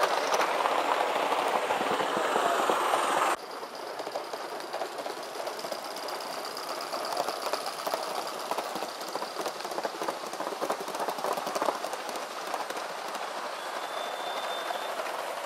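Large-scale model trains running on the track, their wheels rolling and clicking rapidly over the rail joints. The first few seconds are louder and denser and cut off suddenly, followed by a quieter, steady run of quick clicks.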